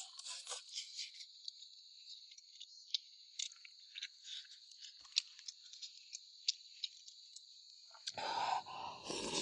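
Faint, steady insect chirring with scattered light clicks and taps. About eight seconds in, a louder rustling noise starts.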